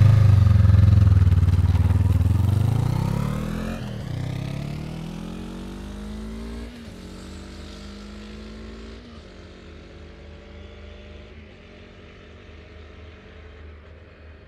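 Motorcycle accelerating away hard, its engine pitch climbing and dropping back at each upshift, about four gear changes, fading into the distance.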